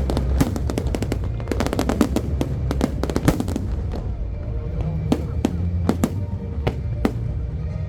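Aerial fireworks: a dense, rapid crackle of bursting shells for the first few seconds, thinning after that to separate bangs roughly every half second. Music plays underneath.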